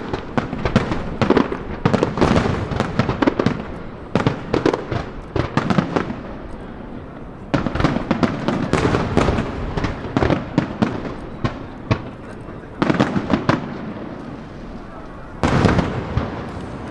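Aerial fireworks going off in rapid volleys of bangs and crackling, with a few short lulls between volleys.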